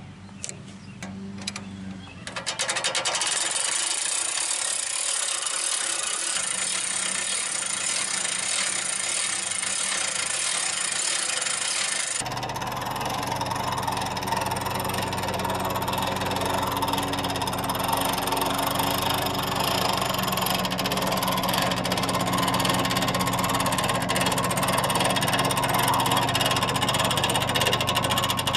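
A few seconds of rapid ratcheting clicks from the sawmill's hand-cranked log winch. The Wood-Mizer LT15GO portable sawmill's engine then starts running steadily and keeps going.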